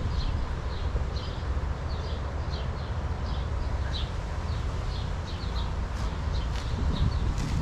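Small birds chirping over and over in short notes, over a steady low rumble, with a few sharp clicks near the end.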